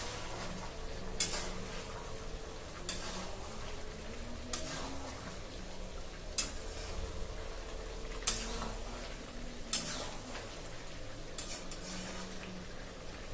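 Chicken curry being stirred in a metal pan: a spoon scrapes the pan about every second and a half, seven strokes in all, over a steady sizzle as the chicken and onions cook in their own juices.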